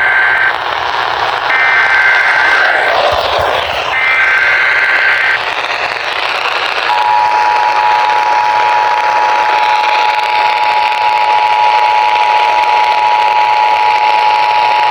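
Emergency Alert System alert coming over a radio broadcast. The end of one burst of warbling SAME header data tones is heard, then two more full bursts. About a second and a half later the broadcast EAS two-tone attention signal starts and holds steady for about eight seconds. A steady hiss runs underneath.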